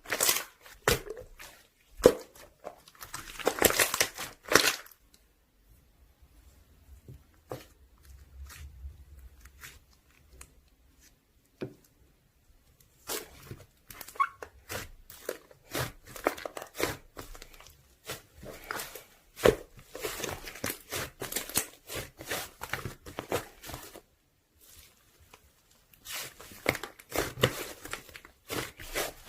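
Slime being squished and worked by hand, making runs of sticky clicks and crackles, with a quieter pause part way through.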